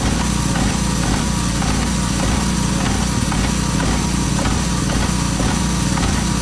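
Walk-behind airless line-striping machine running steadily, its small engine and paint pump driving the spray gun as it lays a yellow line, with an even pulsing a few times a second over a hiss.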